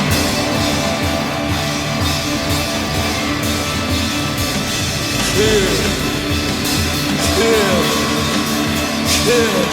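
Loud rock music with a drum kit.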